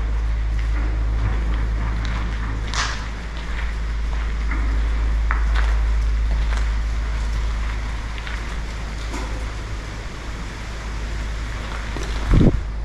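Wind buffeting the microphone in a steady low rumble, with light scattered footsteps and scrapes on debris-strewn concrete. A brief loud thump comes near the end.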